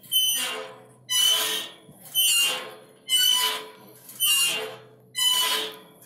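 Iron swing squeaking as it swings back and forth: about one squeak a second, each starting sharply and fading out.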